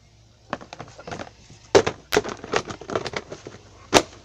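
Irregular handling noise: a run of sharp clicks and knocks, loudest a little under two seconds in and again just before the end, as the camera or the plastic slime containers are moved about.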